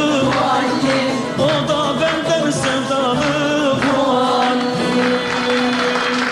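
Song with singing over instrumental backing, closing on a long held note that stops near the end.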